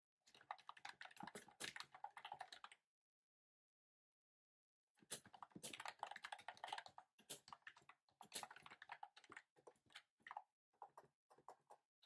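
Typing on a typewriter-style computer keyboard with round keycaps: fast runs of key clicks, broken by a pause of about two seconds in the first half, then a quick run and shorter bursts of keystrokes.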